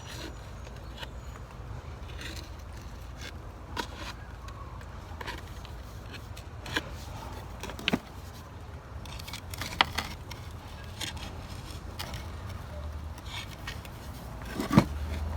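Scattered knocks and scrapes of a potted mint plant being worked loose from its pot, the loudest knock near the end, over a low steady rumble.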